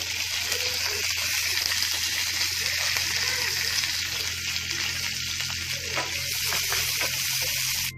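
Chopped onion sizzling steadily in hot oil in a nonstick frying pan with green chilli and curry leaves, stirred with a wooden spatula: the onion being sautéed for a tempering.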